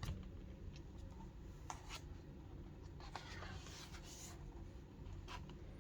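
A picture book handled quietly: faint rustling with a few soft clicks, scattered through the pause.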